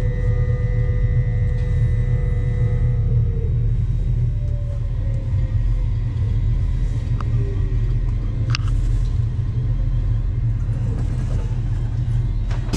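Inside an LNER Azuma high-speed train, a steady low rumble of the train running on the rails. A faint whine drops slowly in pitch as the train slows, and there are two sharp clicks a little past the middle.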